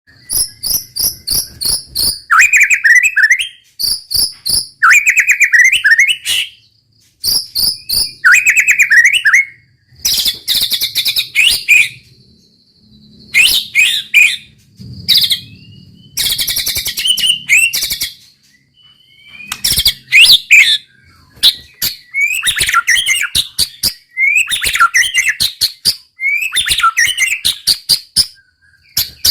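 White-rumped shama singing loud phrases of a few seconds each with short pauses between: quick rolls of rapid, repeated high notes mixed with lower sweeping whistles.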